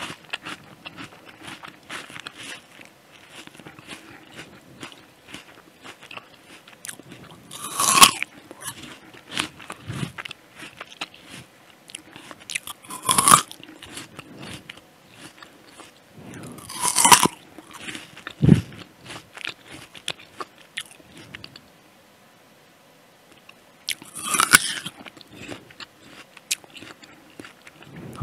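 Bites into a juicy Jazz apple: four loud, crisp crunches a few seconds apart, with wet chewing in between.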